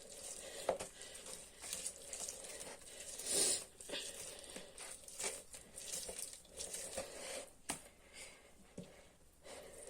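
Faint, irregular squelching and handling noises of lemons being squeezed by hand for their juice, with a few short sharper knocks.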